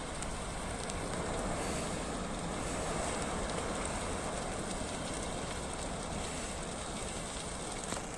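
Forest fire burning: a steady rushing noise with a few faint crackles.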